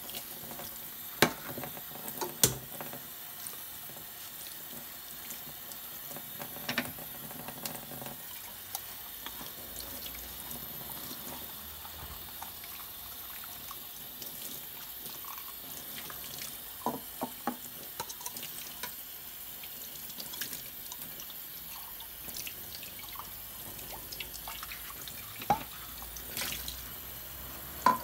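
Tap water running steadily into a stainless steel sink while plastic blender parts are rinsed and scrubbed under the stream, with a few sharp clicks and knocks along the way.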